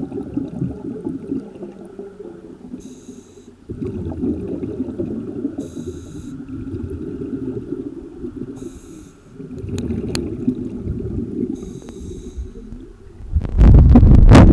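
Underwater sound of a diver breathing on a regulator: a short hiss about every three seconds, with rumbling bubbles in between. Near the end a loud rush of water and wind noise as the camera breaks the surface beside the hull.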